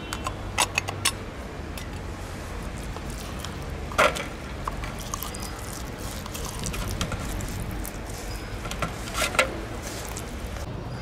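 Wet cat food being tipped out of a tin can onto a plastic plate: soft squishy plops with a handful of sharp taps and clicks, the loudest about four seconds in.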